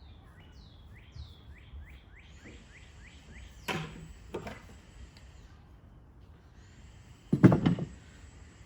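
A bird singing a rapid series of short down-slurred whistled notes, then handling noises from garden work: two sharp knocks midway and a louder crunching rustle near the end.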